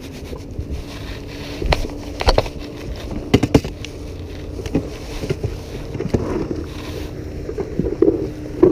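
Boat motor running with a steady hum, with a few sharp knocks about two and three and a half seconds in.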